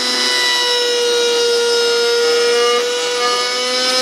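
Router running in a homemade router table, its round-over bit cutting along the edge of a scrap wood board fed by hand. A steady high whine that dips slightly in pitch mid-way as the wood is pushed into the bit, then rises again near the end.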